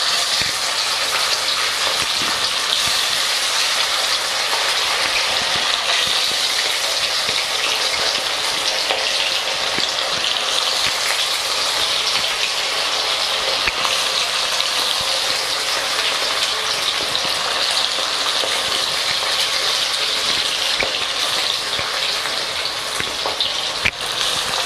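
Marinated chicken pieces deep-frying in hot oil in a kadai: a steady, even sizzle, with more pieces dropped into the oil one by one.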